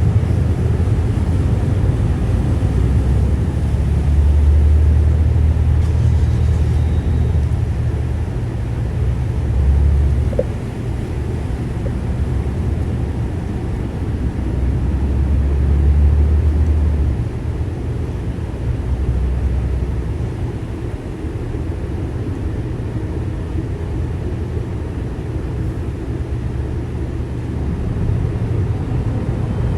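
Boat underway: a steady low rumble of motor and water with wind buffeting the microphone, swelling in uneven gusts.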